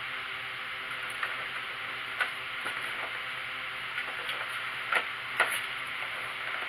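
A plastic ball knocking and clicking in an orange plastic circular ball-track cat toy as kittens bat at it: about half a dozen short sharp knocks, the loudest two close together near the end. Under it runs a steady hiss with a faint hum.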